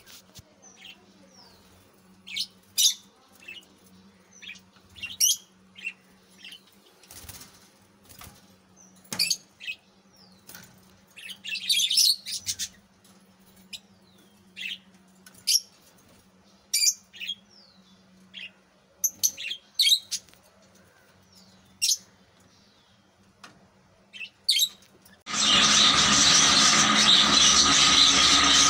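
Budgerigar giving short, high chirps every second or two, some sliding in pitch. About three seconds before the end, a much louder steady noise suddenly takes over.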